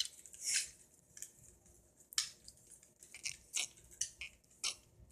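Small plastic toy pieces being handled: a series of short, irregular clicks and rustles, a few of them louder, as the parts are moved and turned over in the hands.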